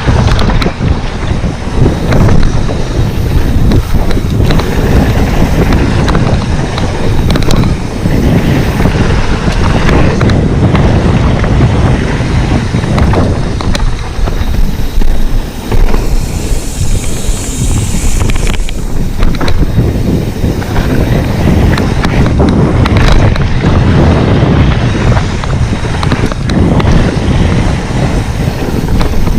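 Loud wind buffeting on the microphone over a heavy low rumble, with frequent knocks and rattles, as from a vehicle on the move.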